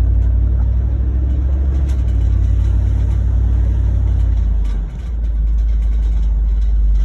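Truck cab noise while driving: a steady low engine and road rumble, which dips briefly about five seconds in and then picks up again.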